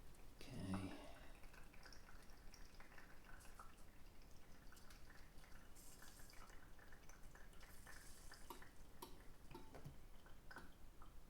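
Faint dripping and small ticks of coffee being pressed through an AeroPress's metal filter into a cup. A brief low-pitched sound, the loudest thing heard, comes about a second in, with short soft hisses later on.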